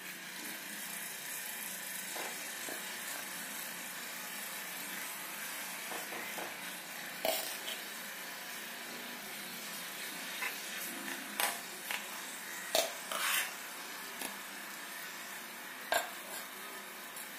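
Marinated chicken pieces frying in hot butter in a pan: a steady sizzle, with a few sharp pops and spits in the second half.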